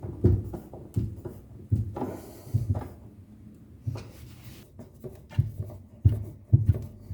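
Irregular knocks and handling sounds as a stainless steel drawer runner is screwed to the cabinet side with a screwdriver.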